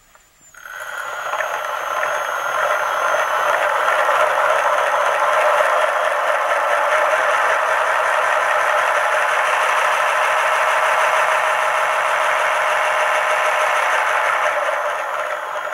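Homemade belt-driven ball mill starting up about half a second in: the balls tumble and rattle steadily in the turning jar, with a high whine from the drive in the first few seconds. The clatter starts to fade near the end as the mill runs down.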